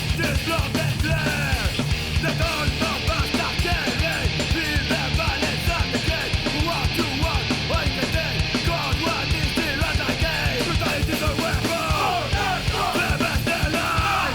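Loud, fast punk-style rock music with shouted vocals over a steady, driving drum beat.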